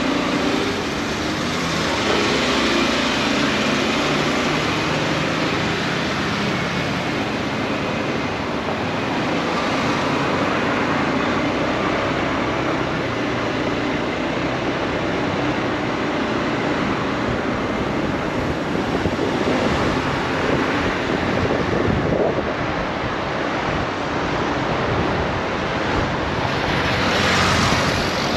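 Wind noise rushing over the microphone of a riding motorcycle, with the engine and tyre roar underneath; the rush swells louder near the end.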